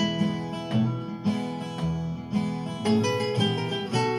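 Acoustic guitar playing an instrumental break without singing: plucked and strummed notes over changing bass notes.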